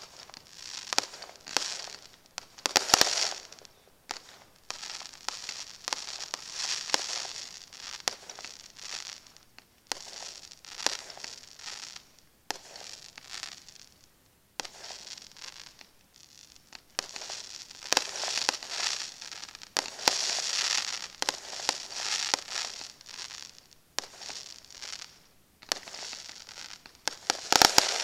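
Aerial fireworks display: sharp shell bursts and long stretches of crackling from crackle-effect stars, with a lull about halfway through. The loudest bangs come a few seconds in and again near the end.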